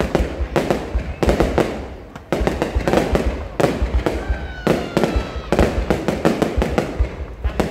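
Fireworks display: a dense, continuous barrage of sharp bangs and crackling explosions, several a second.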